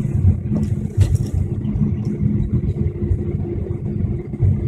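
Airliner cabin noise while taxiing after landing: a steady low rumble of the jet engines at idle thrust, with a constant hum over it.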